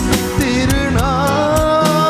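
Live band playing a Tamil film song with a drum kit beat, and a singer holding a long note with vibrato from about a second in.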